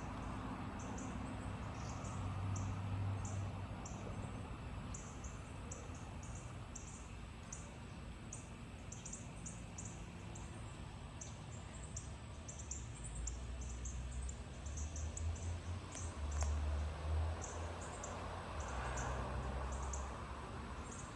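Insects chirping in short, high, repeated pulses, over a low rumble of distant thunder from an approaching thunderstorm that swells during the second half.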